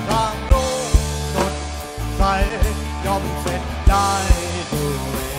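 Rock band music: a drum kit beat under a melodic lead line that bends in pitch.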